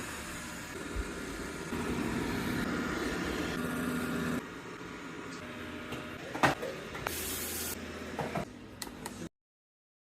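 Robot vacuum and mop running, a steady motor whir with a faint hum, jumping in level between edited clips. A sharp click comes about six and a half seconds in, a brief hiss just after seven seconds, and the sound cuts out shortly before the end.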